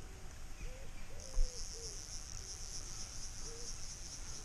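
A chirring insect, grasshopper or cricket type, stridulating in a continuous high, buzzy trill that starts about a second in. It sounds over low wind rumble on the microphone, with a bump about one and a half seconds in.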